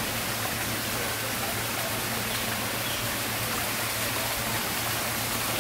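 Steady rush of running water, an even hiss without breaks, with a low steady hum underneath.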